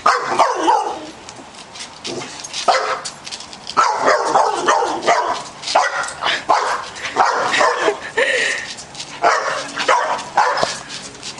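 Young boxer dog barking and yipping in a string of short, repeated calls, excited by a large tortoise chasing it.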